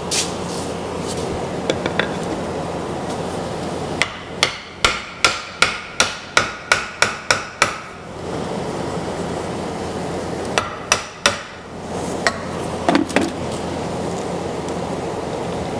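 A hammer striking the end of a wooden handle, driving it into the eye of a 10 lb sledge head clamped in a vise to test the fit. There is a quick run of about eleven sharp blows, roughly three a second, then two shorter runs of a few blows each.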